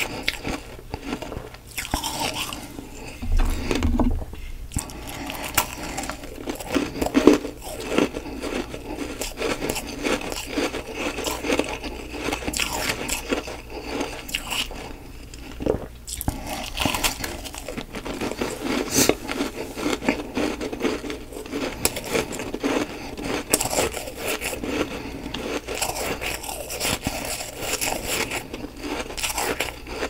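Biting and chewing chunks of fluffy humidifier frost: dense, irregular crunching with many small crackles.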